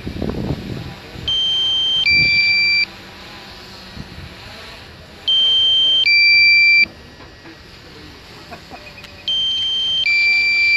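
Electronic two-tone alert beeping: a higher tone then a lower tone, each just under a second, the pair repeating about every four seconds.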